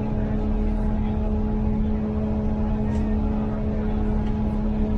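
Pikes Peak cog railway train's diesel engine running steadily, a constant drone with a strong hum and a low rumble.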